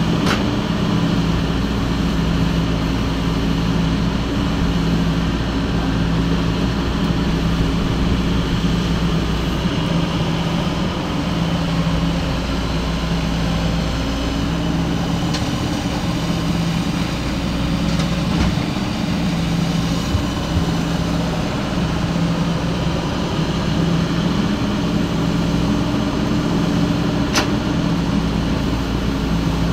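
Heavy diesel engine of an excavator running steadily, with a low hum that pulses at an even rhythm.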